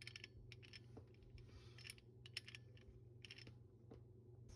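Faint, irregular metallic clicks and taps as a swivel hose fitting is handled and screwed onto the water supply in the wall, over a low steady hum.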